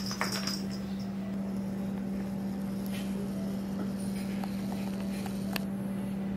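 A steady low hum, with a couple of light clicks at the start as a cat bats a small plastic toy ball, and one more click near the end.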